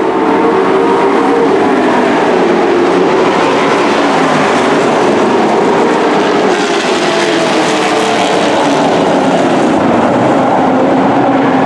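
Engines of several dirt-track race trucks running hard in a pack, their pitch rising and falling as they go around the oval.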